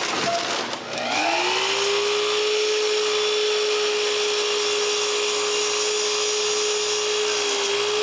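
Sliding compound miter saw's motor spinning up about a second in, rising in pitch, then running steadily at speed with the blade not yet in the wood. A dust extractor hisses along with it.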